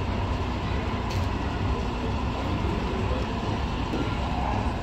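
Diesel engine of a yellow Ikarus articulated bus running as the bus pulls slowly forward, a steady low rumble.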